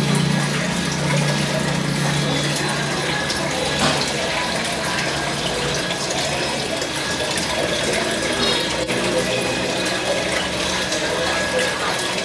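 Steady bubbling and splashing of aquarium water from streams of air bubbles rising through the tank.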